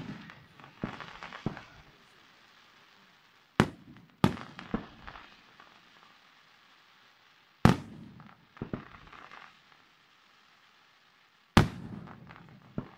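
Aerial firework shells bursting overhead, with a loud bang every few seconds. Each big bang is followed by a short scatter of smaller pops.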